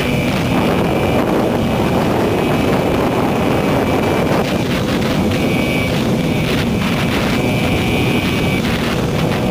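Yamaha R15 single-cylinder sport bike running steadily at speed, with wind rushing over the microphone. A thin high whine comes and goes.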